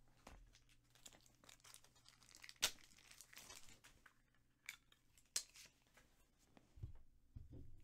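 Faint tearing and crinkling of a trading-card pack wrapper being opened, with a few sharper crackles, the loudest about two and a half seconds in.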